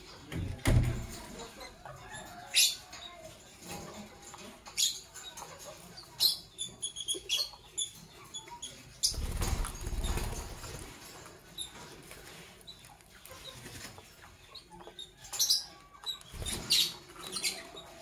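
Lovebirds giving short, sharp chirps in scattered bursts, with a quick run of chirps midway. A few brief low rumbles or thumps come in between.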